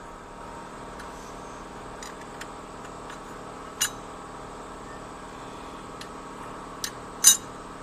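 Metal parts of an automatic transmission clicking against each other as they are handled and fitted, with a few light clicks and two sharper metallic clinks, one about four seconds in and one near the end, over a steady background hum.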